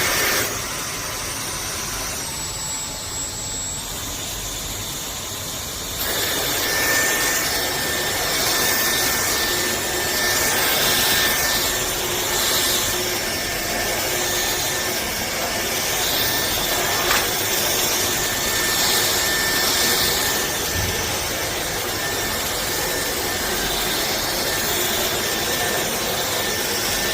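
Dyson V12 Detect Slim cordless stick vacuum running: a steady rushing noise with a thin high whine from its motor, growing louder about six seconds in.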